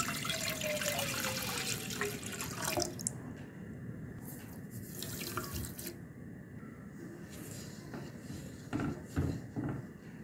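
Milk pouring in a steady stream into a non-stick saucepan for about three seconds, with the pitch of the splashing gliding as the pan fills, then dying away. A few sharp knocks near the end.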